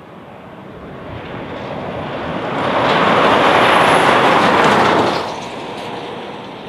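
Road train hauling livestock crates passing at highway speed: engine and tyre noise builds as it approaches, is loudest as the trailers roll by, and drops off sharply about five seconds in once they have passed.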